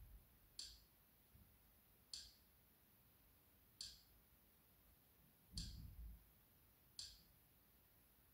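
Near silence with five soft, short clicks about one every one and a half seconds as the media-player menu is stepped through; a low thump comes with the click in the middle.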